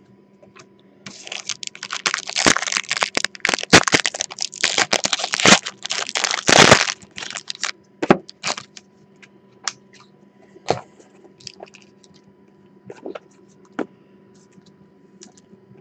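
Foil wrapper of a Panini XR football card pack crinkling as it is torn open, a dense crackle for about six seconds, then scattered light clicks and taps as the cards are handled.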